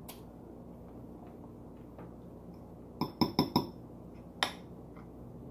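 Metal fork clinking against a glass plate: a quick run of four clinks about three seconds in, then one more about a second later, with a few fainter taps before.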